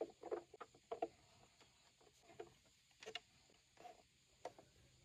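Faint knocks and taps from a hand handling a plastic toy school bus: several in quick succession in the first second, then scattered ones as the bus is tipped over.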